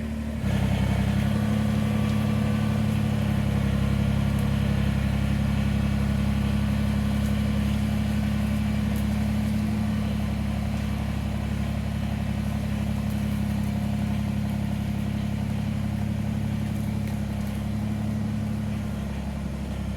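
Kubota BX23S compact tractor's three-cylinder diesel engine running steadily under load while towing a log on a rope hooked to its loader bucket.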